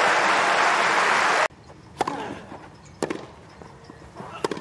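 Crowd applauding, cut off abruptly about a second and a half in; then sharp knocks of a tennis ball being struck, about one a second, with two in quick succession near the end.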